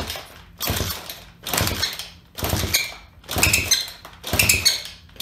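SSR 110 pit bike's horizontal four-stroke single being kick-started over and over, about one kick a second, turning over without catching. Each kick carries a squeak, which the owner first takes for a leaking exhaust gasket and later finds to be a blown head gasket leaking compression.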